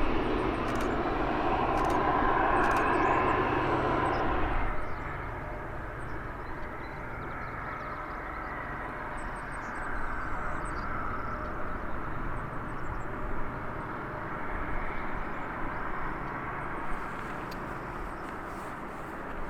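Jet airliner engine noise, a steady rushing sound that drops suddenly to a lower level about five seconds in and then holds steady.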